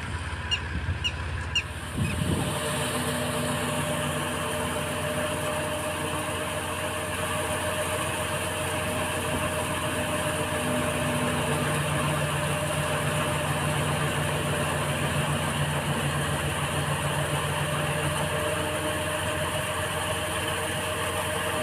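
Tractor-driven Jangir paddy thresher running steadily, a constant mechanical hum and rattle from the machine and the tractor engine. The sound comes in close and loud about two seconds in.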